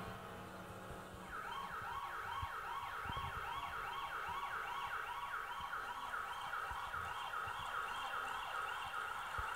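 An emergency-vehicle siren wailing in quick yelps, about two rising-and-falling sweeps a second, starting about a second in.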